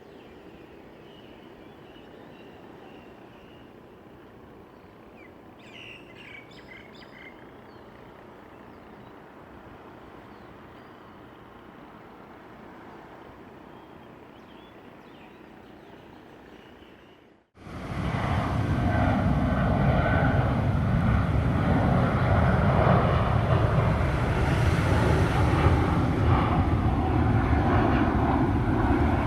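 Quiet open-air ambience with a few bird chirps. After a sudden cut about two-thirds of the way in, a jet airliner on takeoff passes low overhead with a loud, steady roar that lasts to the end.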